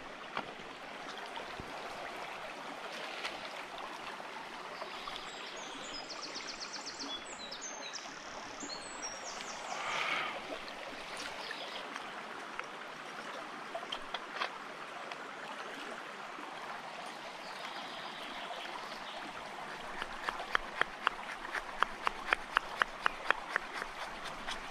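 Shallow stream running steadily over stones. In the last few seconds, a bushcraft knife is batoned down through a split log with a wooden stick, a sharp knock about twice a second.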